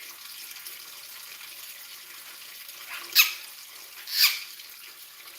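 Two short, shrill calls, each falling steeply in pitch, a second apart and about three seconds in, over a steady hiss like running water.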